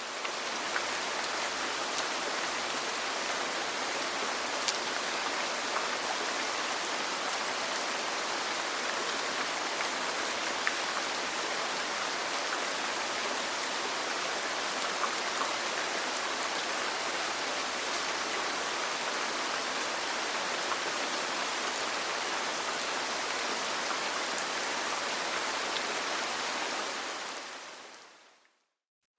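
Steady rain falling, with a few faint scattered drop ticks; it fades in at the start and fades out near the end.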